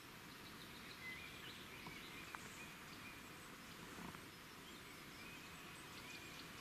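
Faint outdoor ambience, close to silence, with a few faint high chirps about a second in and again near the end, and a few tiny clicks.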